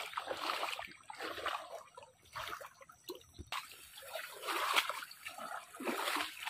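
Feet wading through a shallow, fast-flowing stream: irregular splashes and sloshes, about one per step, over the steady trickle of the current.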